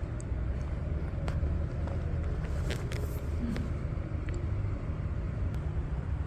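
Steady low vehicle rumble, with a few faint clicks and taps over it.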